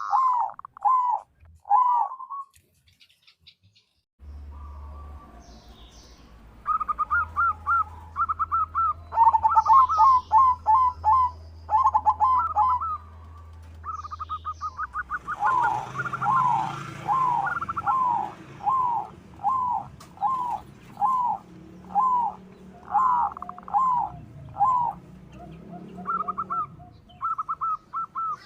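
Zebra dove (perkutut) singing: strings of short cooing notes, quick runs in the first half, then evenly spaced notes a little under two a second, with a short pause a few seconds in.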